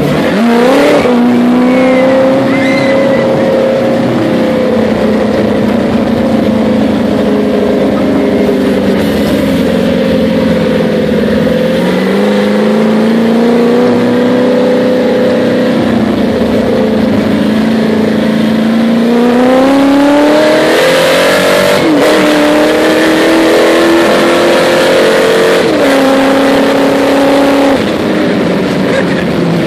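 Supercharged LS3 Corvette V8 in a sandrail, loud under way, its pitch rising and falling with the throttle. It climbs about a second in, dips and rises again near the middle, makes a long climb about two-thirds through, then drops sharply, and drops suddenly once more a few seconds later.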